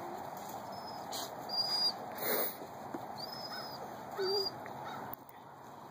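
Lab/Shepherd mix puppies whimpering: a few short, high squeaks a second or two apart, with a brief rustle in the middle.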